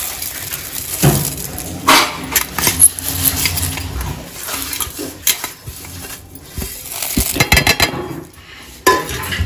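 Dry-roasted lentils, seeds and chillies rattling and scraping on a steel plate as they are tipped and swept by hand into a steel mixer-grinder jar, with irregular clinks of metal on metal and a sharp knock near the end.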